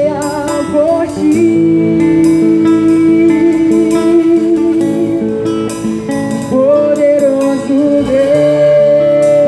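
Live church band playing a slow worship song: drum kit with regular cymbal strokes under guitar and keyboard chords, while a voice holds long sung notes.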